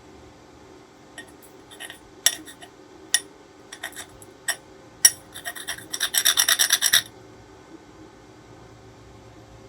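Irregular scraping and sharp clicks, ending in a quick run of rapid clicks about a second long.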